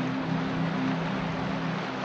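Steady rush of whitewater river rapids under slow ambient synthesizer music holding low sustained chords.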